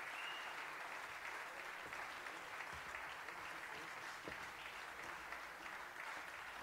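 Audience applauding steadily in a theatre.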